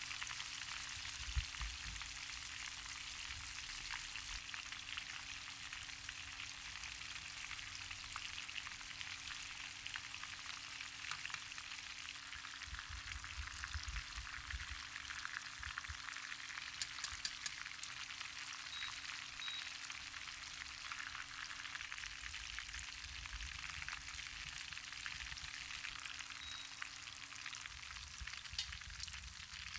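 Breaded shrimp deep-frying in shallow oil in a frying pan: a steady sizzle of small bubbling and crackling, with scattered sharper pops. A faint low hum under it drops in pitch near the end.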